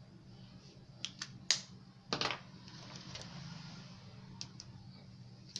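Light handling of a clear plastic ruler on paper over a cutting mat: a few short clicks about a second in and again near the end, and a brief scrape about two seconds in as the ruler is laid down and shifted, over a faint low hum.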